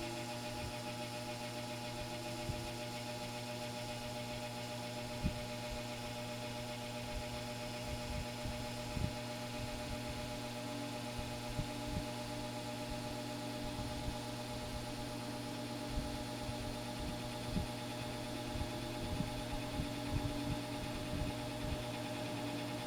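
McGraw-Edison Toastmaster model 5325 box fan running steadily: an electric motor hum under the rush of air from the blades, with occasional light ticks that come more often near the end.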